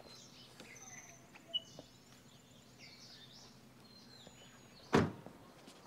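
Birds chirping over quiet outdoor ambience with a faint steady hum, and a single sharp thump about five seconds in.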